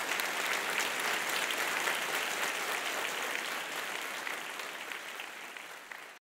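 Audience applause, many people clapping at once, which fades over the last two seconds and cuts off abruptly near the end.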